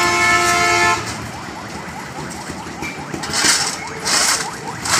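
A vehicle horn sounds one steady note and cuts off about a second in. Later come two short scrapes of a shovel digging into loose gravel.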